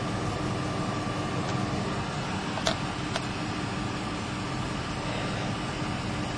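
Ford F-150's 5.4-litre Triton V8 idling steadily, its exhaust flowing freely from a tailpipe that the aluminium foil has blown clear of. Two light clicks come near the middle.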